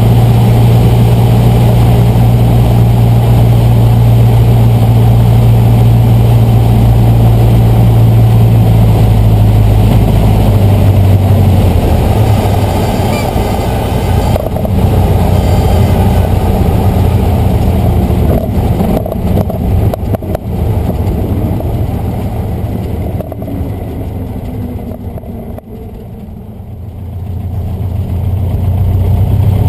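Cessna 150's four-cylinder Continental O-200 engine and propeller through a landing: a steady drone on short final, dropping to a lower, quieter idle about twelve seconds in as the plane rolls out on the runway, quietest a few seconds before the end, then throttled up near the end to taxi.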